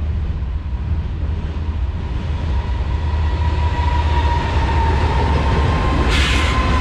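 BNSF diesel freight locomotives approaching and passing close by, a steady low engine rumble that grows louder, with a high whine coming in about halfway and a brief loud hiss near the end.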